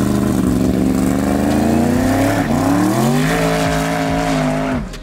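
Drag-race car's engine held at high revs during a burnout to warm the tyres, with a rushing hiss alongside. The engine note sags a little, climbs back up about two and a half seconds in, holds, and cuts off just before the end.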